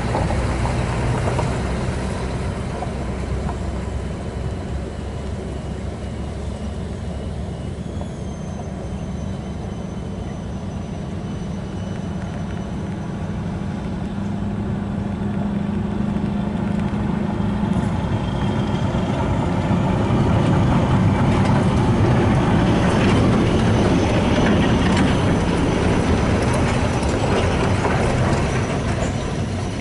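Convoy of heavy cargo trucks driving along a muddy dirt road, their engines running with a steady drone that grows louder past the middle as the trucks come nearer.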